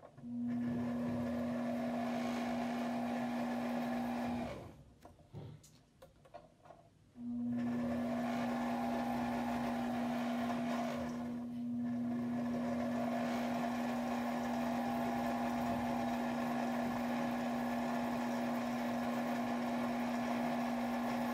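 Sewing machine winding a bobbin, its motor running at a steady high speed with an even hum. It stops about four seconds in and starts again about three seconds later.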